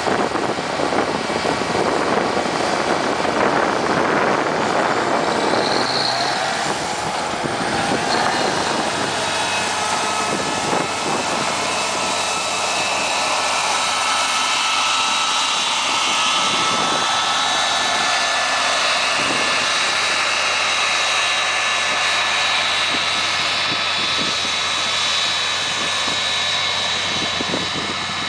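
Ford four-wheel-drive tractor's diesel engine working under load as it pulls an air seeder, mixed with steady high whines from the seeder. The engine is heaviest in the first few seconds as the rig passes close, then thins as it moves away while the whines hold.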